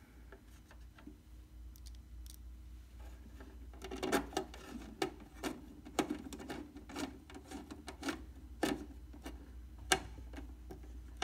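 Hand screwdriver driving a small Phillips screw back into a radio's circuit-board assembly: a run of irregular light clicks and scrapes of the tool in the screw head, starting about four seconds in.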